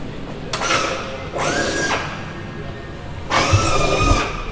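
Hand-held power drill running in three short runs, each a second or less, drilling rivet holes through the aluminium airframe skin and reinforcement bracket; its whine rises as it spins up.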